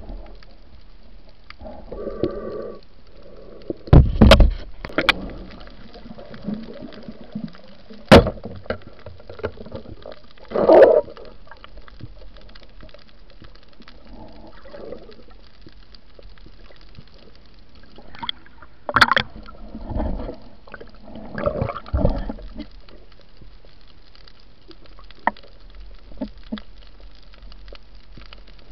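Underwater sound heard through an action camera's housing: muffled bubbling and gurgling in irregular swells, broken by several sharp knocks and clicks.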